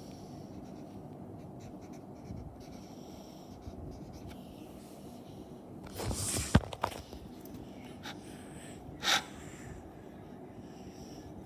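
Marker writing on a whiteboard: faint scratching strokes of the tip, with a louder scuff ending in a sharp click about six seconds in and another short stroke about nine seconds in, over a steady low hum.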